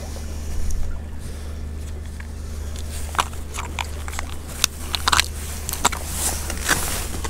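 Small plastic tackle boxes being handled while a jig head is picked out: a series of short sharp plastic clicks and rattles from about three seconds in, over a steady low rumble.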